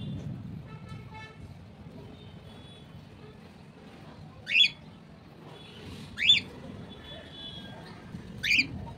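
Cockatiels calling: three loud, short rising chirps spaced a couple of seconds apart. Fainter held whistling tones and a low rumble sit underneath.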